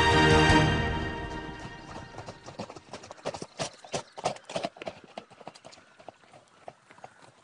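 Hooves of several ridden horses beating on a leaf-covered earth path, an irregular run of hoofbeats that is loudest in the middle and fades near the end. Loud music fades out over the first second or two.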